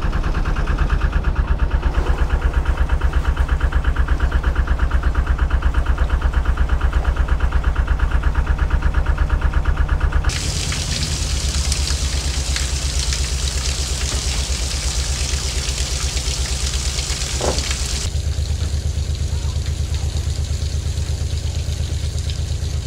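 Narrowboat diesel engine running steadily at low revs in forward gear, holding the bow against the lock gate, with an even, rapid beat. A rushing hiss joins it for several seconds in the middle.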